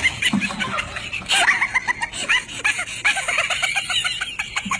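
High-pitched, rapid cackling laughter: a long run of short squealing notes, several a second.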